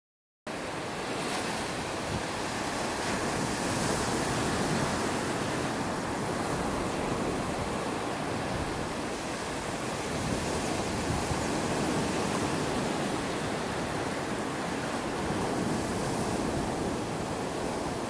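Ocean surf washing onto a sandy beach: a steady rush of breaking waves that rises and falls gently, starting about half a second in after a brief silence.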